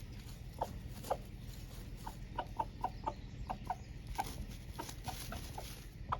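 Araucana chickens clucking: short, separate clucks at an irregular pace, at times several a second.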